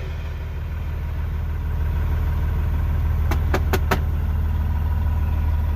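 Truck engine idling steadily with a low hum, a little louder after the first couple of seconds, with four quick sharp clicks a little past the middle.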